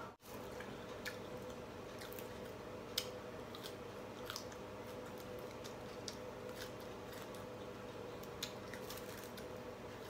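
A person chewing food close to the microphone: scattered short, sharp mouth clicks and smacks over a steady low hum.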